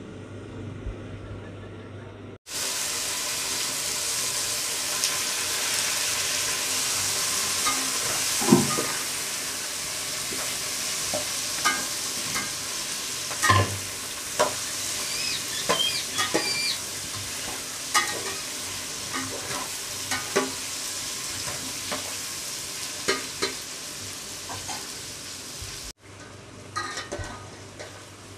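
Sliced potatoes and onions frying in hot oil in an aluminium pot, sizzling loudly, with a metal slotted spoon scraping and knocking against the pot as they are stirred. The sizzle starts abruptly about two seconds in and cuts off near the end, giving way to a softer sizzle with spatula clicks.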